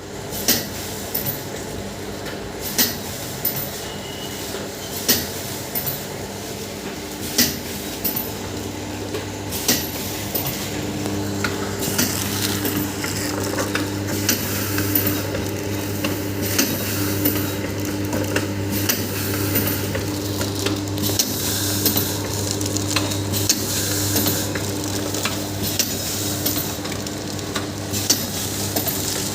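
High-speed pouch packing machine running: a steady motor hum under repeated sharp mechanical clicks. The clicks come about every two seconds at first, then thicken into a busier clatter as a deeper hum grows louder about eight seconds in.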